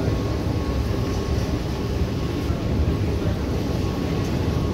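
Steady low rumble of a running escalator and the metro station hall around it, with a faint thin whine over it.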